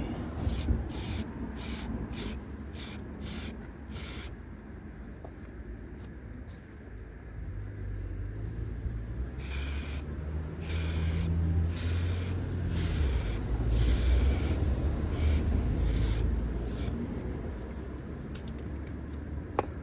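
Aerosol can of clear lacquer spraying in hissing bursts: about eight quick puffs in the first four seconds, then a run of longer half-second bursts through the middle, over a low rumble. The can is losing its pressure and running out.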